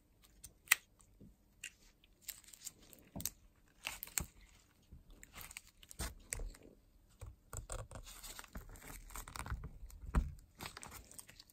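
Faint, irregular clicks and scrapes of small metal parts handled by gloved hands, as a retaining clip (circlip) is fitted onto the shaft of a Linhai ATV water pump during reassembly.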